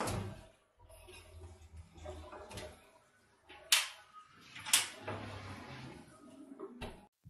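A Bosch built-in oven's removable door being handled on its hinges: a knock as it is moved at the start, two sharp metal clicks from the hinges a second apart in the middle, and a smaller click near the end, with light handling noise between.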